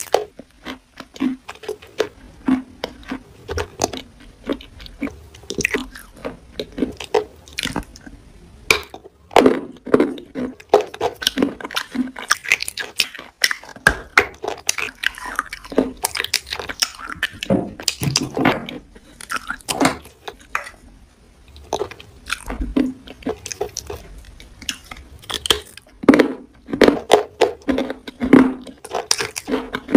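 Close-miked wet crunching and chewing as someone bites into and eats a juicy red plum, a dense run of irregular crackles and smacks with a few short pauses.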